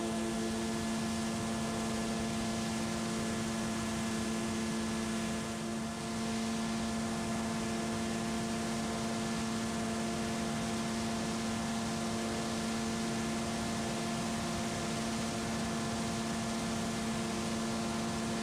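Zenith 750 Cruzer light aircraft's Viking 130 engine and propeller giving a steady drone at climb power just after takeoff, over a steady hiss of rushing air.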